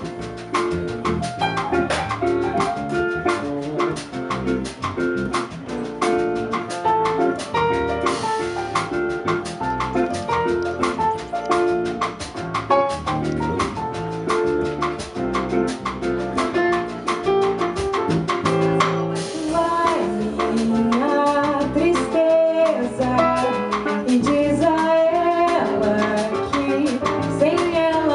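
Live bossa nova played by a small band: guitar, electric bass, piano and drum kit. A woman's singing voice comes in about twenty seconds in.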